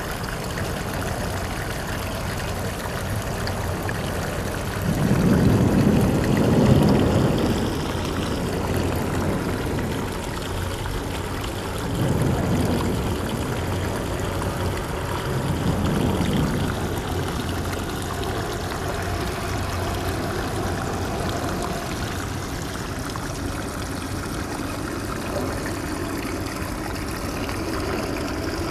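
Shallow seawater trickling and lapping in a rocky tide pool at low tide, a steady wash of water with a few louder, deeper surges in the first half.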